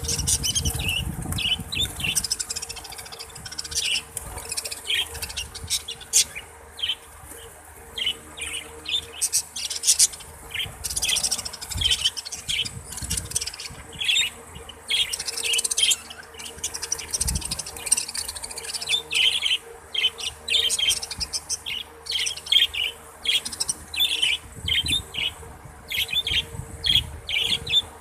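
Pet budgerigars chirping and chattering continuously, a dense run of quick high warbling notes, over a faint steady hum with a few low thumps.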